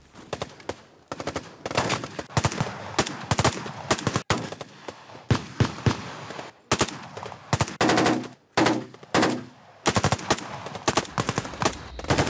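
Automatic rifle fire in rapid bursts and single shots, with short pauses between volleys.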